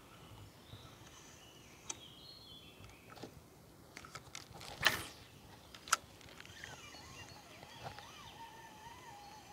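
Faint outdoor background with a few sharp clicks, a louder short swish about five seconds in, and a thin wavering whistle-like tone over the last few seconds.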